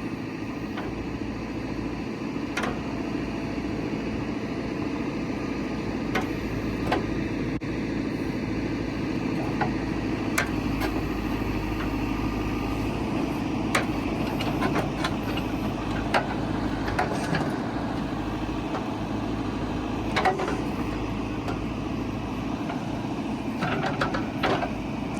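JCB 3CX backhoe's 109 hp diesel engine running steadily while the backhoe arm is worked, with scattered sharp knocks at irregular moments.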